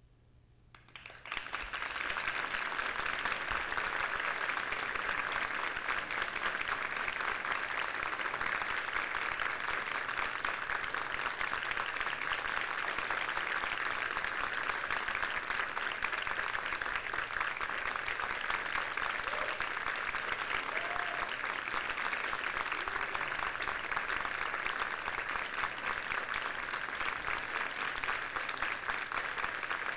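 Theatre audience applauding: the clapping breaks out about a second in, swells quickly and then holds steady, with a couple of brief whoops near the middle.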